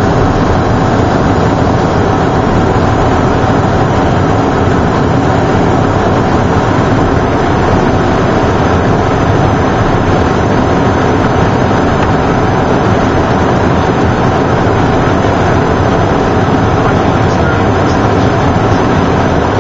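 Steady cabin noise inside a Cessna Citation Mustang business jet descending in flight: the rush of airflow and the hum of its twin Pratt & Whitney Canada PW615F turbofans, with one steady tone running through it.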